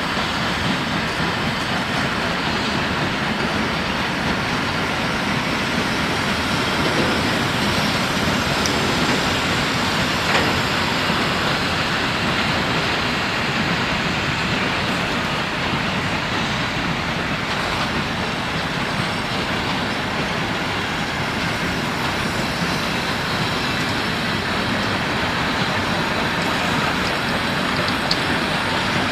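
Steam-hauled train of empty coal wagons behind a WWII Kriegslok steam locomotive, running steadily: a continuous rumble of wheels and running gear on the track.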